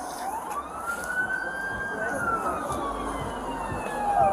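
Emergency vehicle siren sounding a slow wail: the pitch rises for about two seconds, then falls for about two.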